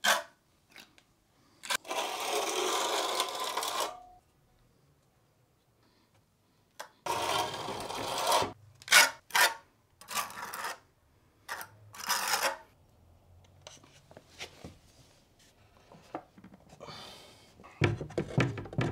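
A notched steel trowel scraping adhesive across a concrete floor in long strokes, followed by short knocks and rubbing as a pine floorboard is handled and laid into place.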